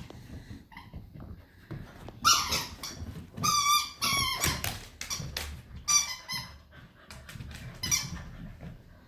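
A cocker spaniel puppy and an American Eskimo dog playing: low scuffling noise, with about five short, high-pitched squeaks starting around two seconds in.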